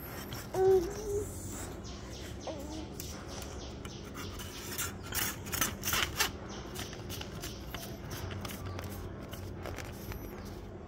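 Telescopic carbon fishing rod being extended by hand: the sections rub as they slide out and seat with light clicks, including a short squeak about half a second in and a cluster of clicks around five to six seconds in.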